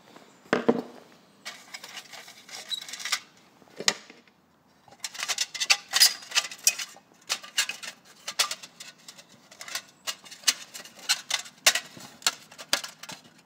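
Thin dimpled sheet-metal reflector being worked loose by hand from a halogen floodlight's metal housing: a string of sharp clicks, taps and light rattles, with a short pause about four seconds in.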